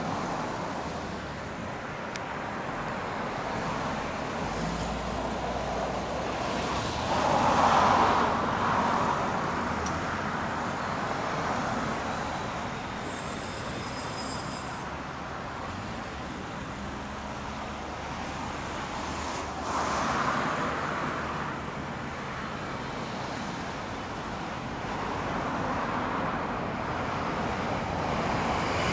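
Steady road-traffic background with two vehicles swelling past, about 8 s and 20 s in. Near the end the sound grows steadily louder as an E531 series electric train approaches.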